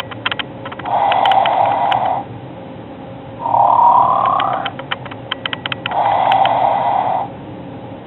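Snoring plush bulldog toy playing its snore loop, repeating about every five seconds. There is a low snore on the out-breath about a second in and again about six seconds in, and a snore that rises in pitch on the in-breath about three and a half seconds in. A quick run of clicks comes before each out-breath snore.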